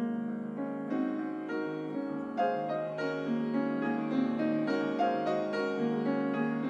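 Background piano music: single notes struck at an even, unhurried pace, each left to ring.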